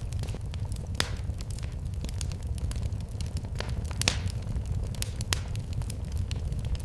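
Wood fire burning in a fireplace: a steady low rumble of flames with irregular sharp crackles and pops, the loudest pops about a second in and about four seconds in.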